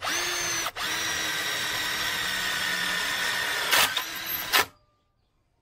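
Cordless drill motor running at speed: a steady whine with a brief break under a second in and two louder rasps near the end before it stops.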